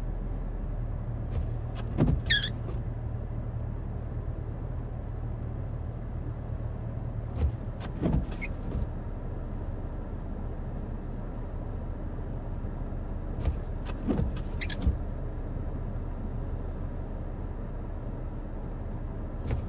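A vehicle engine idling with a steady low hum. A few short, sharp squeaks and clicks break in about two, eight and fourteen seconds in.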